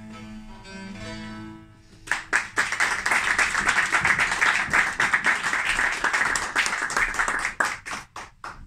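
A plucked long-necked lute's last notes ring out, then an audience bursts into applause about two seconds in. The clapping thins to a few scattered claps and stops near the end.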